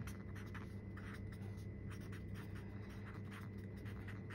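Felt-tip marker scratching across paper in short, quick strokes as capital letters are written.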